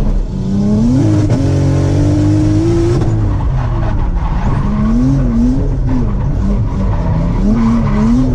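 Nissan Laurel's engine revving under hard throttle while drifting, its pitch climbing quickly near the start, held high, then rising and falling repeatedly. The engine is running with ignition misfires.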